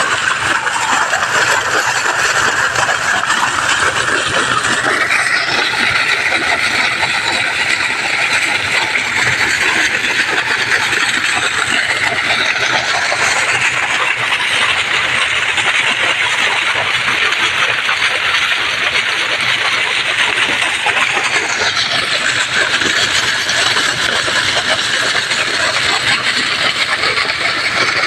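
Water gushing in a thick jet from an irrigation pump's outlet pipe and splashing onto the ground, a loud steady rush, with the pump's motor running underneath.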